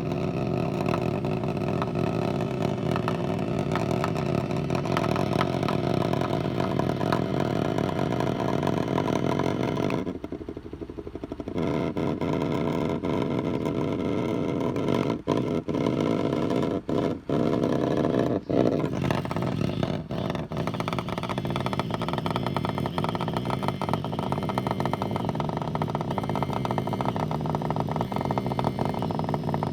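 Wireless vibrating egg's small vibration motor buzzing steadily, with its pattern changing several times as modes are switched: it drops quieter for about a second and a half around ten seconds in, cuts out briefly a few times a little later, then carries on with a lower buzz.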